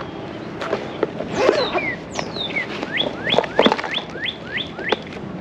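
A songbird singing: two quick falling whistles, then a run of about eight short rising notes, roughly three a second. Scattered clicks and knocks sound around it.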